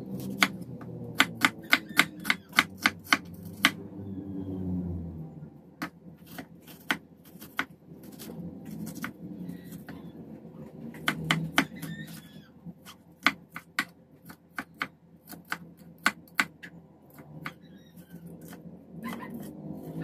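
Chef's knife chopping a red onion on a wooden cutting board: runs of quick knife strikes against the board, about four a second, broken by short pauses and single cuts.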